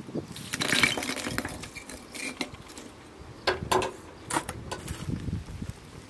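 Lumps of homemade wood charcoal dropped onto a pile in a metal grill box, clinking against each other and the metal in a few quick clusters: about a second in, again near two seconds, and a louder run of knocks between three and a half and four and a half seconds.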